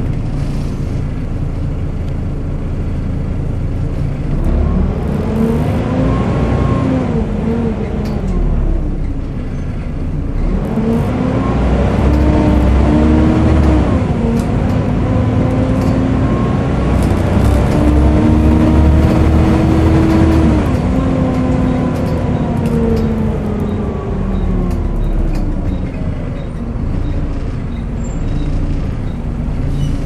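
Volvo B7TL double-decker bus heard from the upper deck while driving: the engine and drivetrain whine rises and falls as it accelerates through the gears and slows again, with a longer climb in steps in the middle, under the hoover-like drone of its cooling fan.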